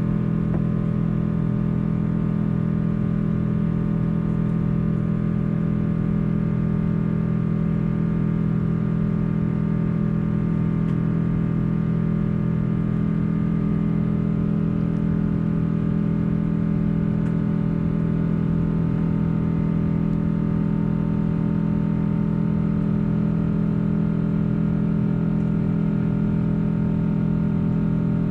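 Boeing 777-200 jet engines heard from inside the passenger cabin: a loud, steady drone made of several fixed low hums, holding level without rising or falling.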